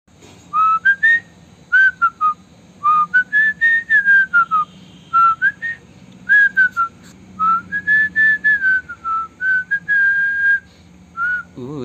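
A boy whistling a tune: a single clear pitch gliding up and down in short, broken phrases.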